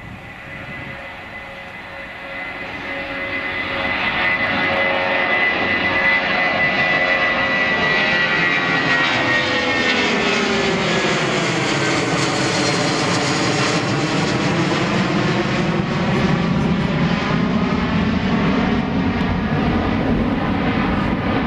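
A Boeing 757-300's twin turbofan engines at takeoff climb power as the jet climbs out and passes overhead. The loud jet noise builds over the first few seconds. Its high whine falls in pitch as the plane goes over, and the sound turns deeper as it flies away.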